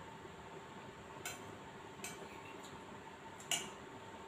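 Metal spoon clinking against a plate three times while eating, the loudest clink near the end.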